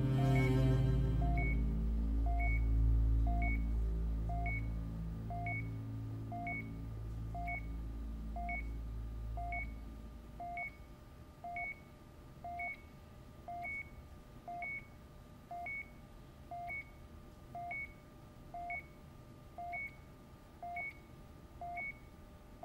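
Bedside patient monitor beeping steadily, one short beep about every second. A low sustained music drone fades out over the first half.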